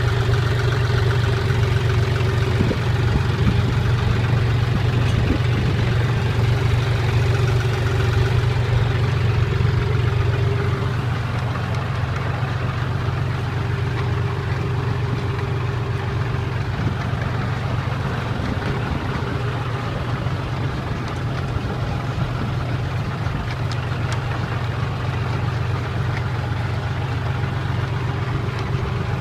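Tractor engine running steadily while working a potato harvester: a continuous low drone that drops a little in level about eleven seconds in.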